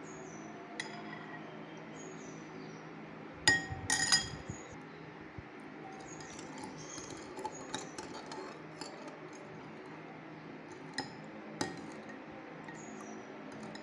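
A metal spoon stirring rose milk with soaked basil seeds in a glass bowl, clinking now and then against the glass; the two loudest clinks come about three and a half and four seconds in.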